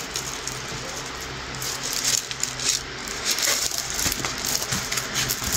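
Stiff diamond painting canvas being handled and pressed flat, its plastic-coated surface crackling and clicking irregularly, busier in the second half.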